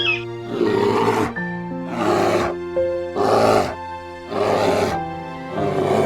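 A big cat roaring five times, each roar a rough burst about half a second long, roughly one a second, over steady background music.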